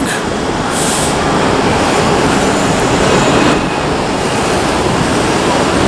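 A subway train passing, a loud steady rush of noise with a brief hiss about a second in.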